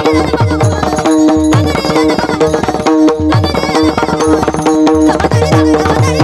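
Pakhawaj drum playing a fast, steady rhythm: deep bass strokes that fall in pitch under a ringing treble head, with brass taal hand cymbals clashing along.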